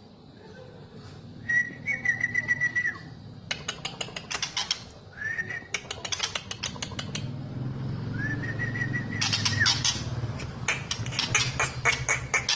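White-rumped shama singing: three clear held whistles, each dropping in pitch at its end, between runs of rapid sharp clicking notes.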